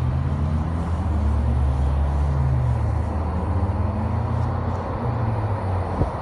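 Pickup truck driving at road speed, heard from inside the cab: a steady low engine and road drone whose pitch drifts slightly. A single short knock near the end.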